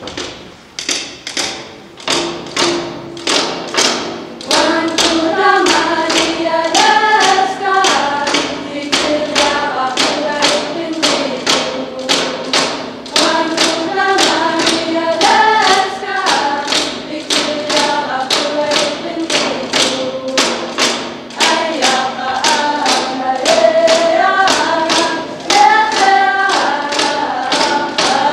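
Greenlandic drum dance: hand-held frame drums struck in a steady, even beat, about two to three strikes a second, joined about five seconds in by a group of young voices singing a traditional Greenlandic song.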